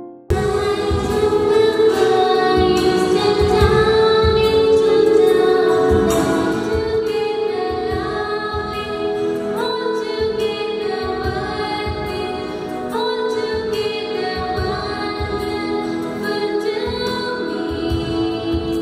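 Women singing a devotional prayer song into a microphone, with musical accompaniment.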